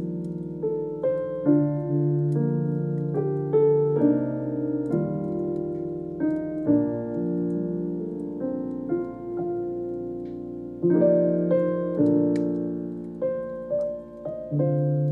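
Background music: solo piano playing slow, sustained notes and chords, each one struck and left to fade.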